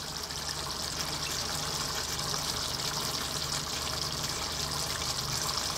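Sardines in tomato sauce simmering on low heat in a pan, a steady soft hiss.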